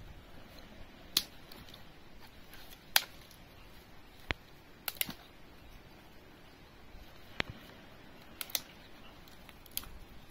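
Scattered sharp clicks and taps, about nine of them at irregular intervals, over a faint steady hiss.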